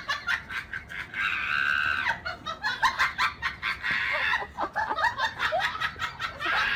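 Rapid, high-pitched cackling laughter: a run of short squealing bursts, with one longer held squeal about a second in.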